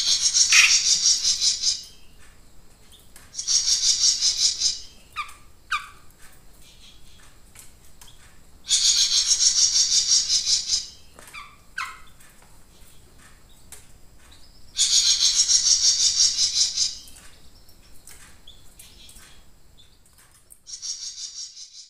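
Caged jenggot mini songbird singing in bursts: five high, rapid trilled phrases each about one to two seconds long, with a few short chirps between them.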